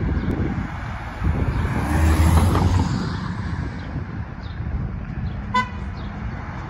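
Street traffic passing, with one vehicle going by close and loud about two seconds in. Near the end a vehicle horn gives one short toot.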